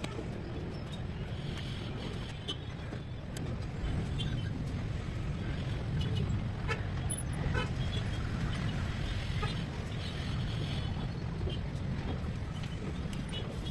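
Single-cylinder diesel engine of a Royal Enfield Diesel Bullet idling steadily, freshly rebuilt and with its injector timing just set. Scattered light clicks sound over the steady rumble.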